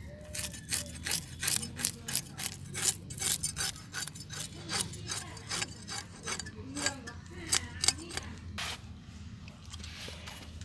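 Climbing perch (koi fish) being scaled against a blade, with quick repeated rasping scrapes, two or three a second, that thin out near the end.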